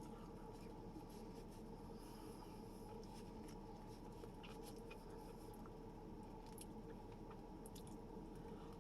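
Faint eating sounds: quiet chewing and a few soft clicks over a steady low room hum.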